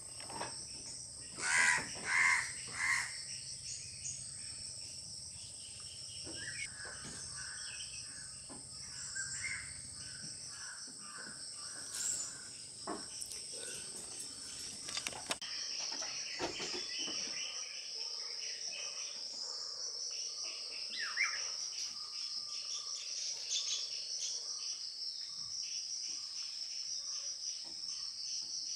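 Steady high-pitched insect chorus, with three loud short harsh calls about two seconds in and scattered faint chirps and a few sharp clicks.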